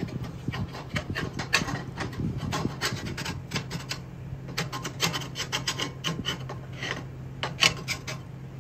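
Rapid, irregular scraping strokes of metal being rubbed or filed on an e-bike's drum brake parts, whose shoes are worn smooth. A steady low hum runs underneath.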